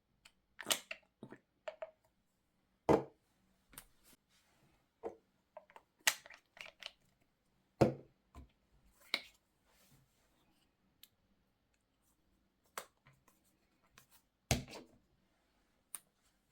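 Scattered knocks, clicks and light clatter of objects being handled, with quiet gaps between; the loudest knocks come about three, eight and fourteen and a half seconds in.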